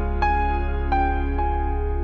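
Background music: a soft, slow new-age style piece with sustained chords over a held bass and a melody of single notes changing every half second or so.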